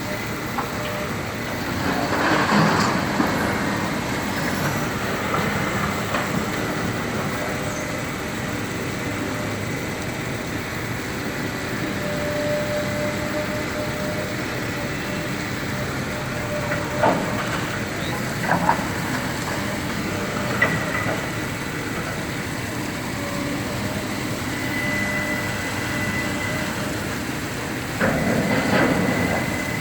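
Heavy demolition machinery running steadily, with occasional sharp clanks and crashes of falling debris: a burst about two seconds in, a few knocks in the middle, and another burst near the end.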